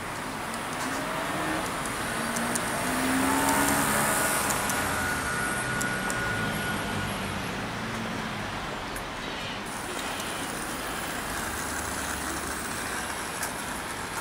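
H0-scale model trams running on a layout: small electric motors whining, their pitch rising and falling during the first half, with faint ticks from the wheels over a steady hiss.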